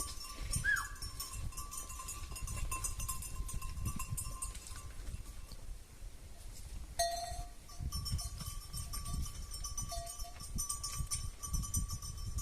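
Goats bleating briefly a few times, over a steady thin high-pitched background tone and low rumble.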